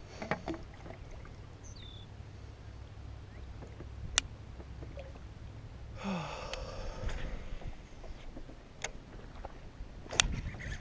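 Kayak handling noises: a few sharp knocks and clicks against the plastic hull, the loudest about four seconds in and near the end, over a low steady rumble, with a short breath about six seconds in.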